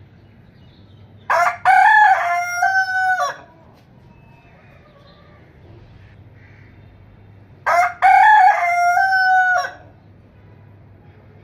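A rooster crowing twice, about six seconds apart. Each crow lasts about two seconds: a short opening note, then a long drawn-out note that steps in pitch.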